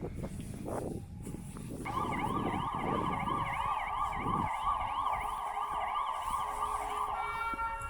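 Emergency vehicle siren with a fast up-and-down warble, starting abruptly about two seconds in and cutting off near the end, over low rumbling traffic noise.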